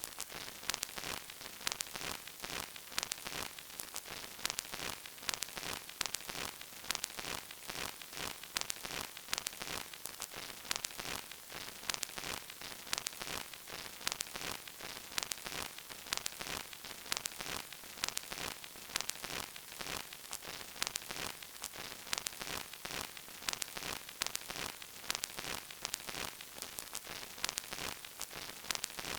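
Crackle of an old vinyl record: a steady surface hiss peppered with dense, irregular pops and clicks.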